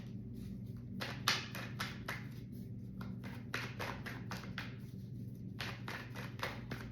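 A deck of tarot cards being shuffled by hand: a run of short papery slaps and swishes, about three a second, starting about a second in.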